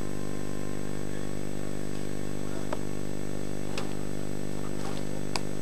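A steady low hum with many even overtones, unchanging in level, with a few faint short clicks and chirps over it.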